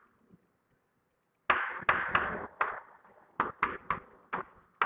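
Chalk writing on a blackboard: a quick, irregular series of sharp taps and short strokes as words are chalked up, starting about a second and a half in.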